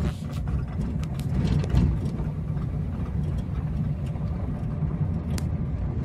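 Steady low rumble of a vehicle travelling along a road, with a few light rattles or clicks.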